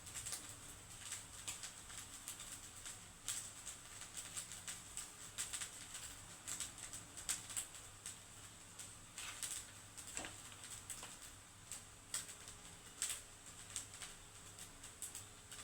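Irregular light taps and clicks of kitchen utensil work, over a faint steady hum.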